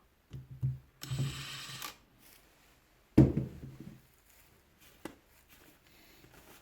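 Hand-tool handling sounds on a rotary hammer's housing while a stuck Torx screw is worked loose: a scraping rustle about a second in, one sharp knock about three seconds in, then faint clicks.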